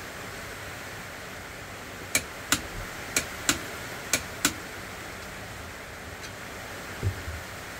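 Six sharp metallic clicks in three quick pairs, about a second apart, as a socket tool is worked by hand on a Ford Cleveland oil pump drive shaft held in a vise, then a dull knock near the end.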